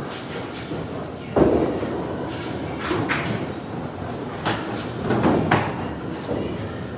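Candlepin bowling alley: a ball thuds down onto the wooden lane about a second and a half in and rumbles along it. Sharp clatters of pins and deadwood follow around three seconds in and again twice near five and a half seconds.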